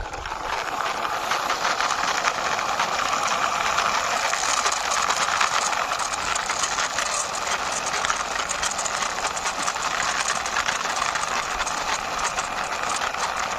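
Wheels of a toy six-wheeler fire truck pushed by hand along a wall: a steady, continuous rolling rattle.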